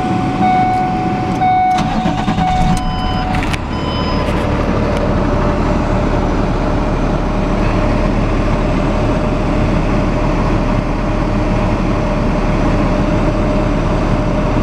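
A repeating electronic chime sounds while the Ford F650's diesel engine cranks and fires about three and a half seconds in. The engine then settles into a steady idle.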